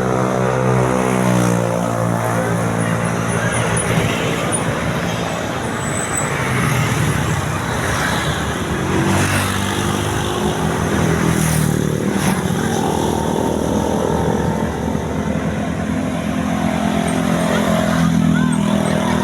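Road traffic passing close by: an engine's pitch drops over the first second and a half as a vehicle goes past, then a steady mix of engine rumble and road noise, with another engine humming at a steady pitch from about twelve seconds in.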